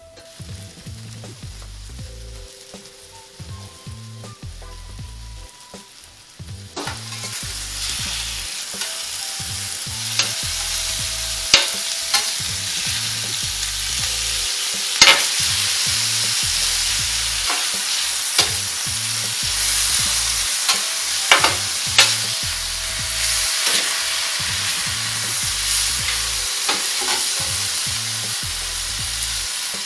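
Seasoned diced meat sizzling on a hot flat-top griddle while it is stirred, with the sizzle growing much louder about seven seconds in. A metal spatula scrapes across the griddle and gives sharp taps now and then.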